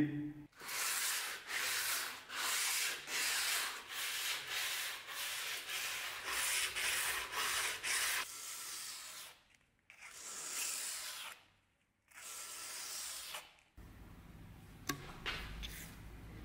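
Hand sanding with sandpaper on a steel dagger blade: quick back-and-forth rubbing strokes, about one and a half a second, then a few slower, longer strokes before it stops near the end.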